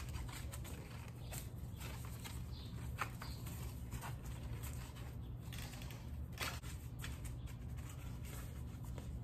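Faint rustling, scraping and small clicks as a vinyl-covered foam backing piece is worked over a metal tow hook, over a steady low hum.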